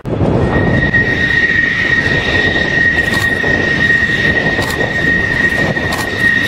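F-16 fighter jet's turbofan engine running loud as the jet taxis: a steady, piercing high whine over a heavy rushing roar.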